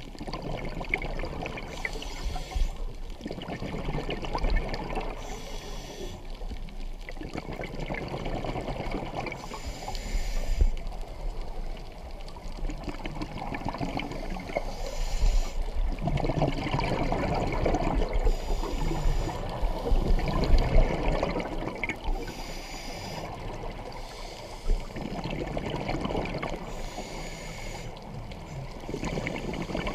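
Scuba diver breathing through a regulator underwater: a short hiss on each inhale, then a longer rush of exhaled bubbles, a breath every few seconds.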